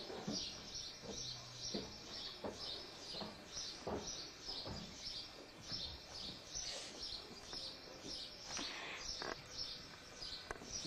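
Small birds chirping over and over, about three short high chirps a second, with a few soft thuds here and there.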